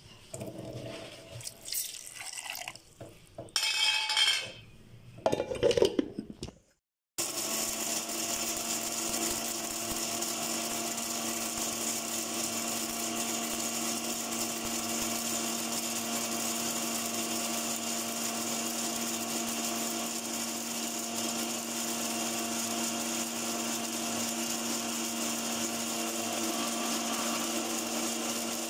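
Electric blender grinding grated coconut with mustard seeds: after a few knocks and clatters as the jar and lid are set in place, the motor starts about seven seconds in and runs steadily at an even pitch to the end.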